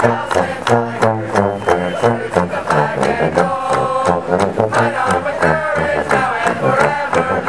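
Marching band playing a tune: saxophones, trombones and sousaphones over drums, with a strong bass line and a steady beat.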